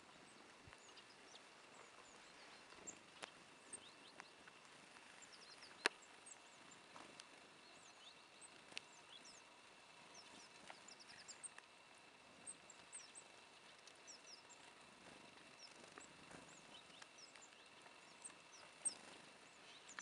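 Faint, scattered high chirps and calls of many small songbirds, with one sharp click about six seconds in.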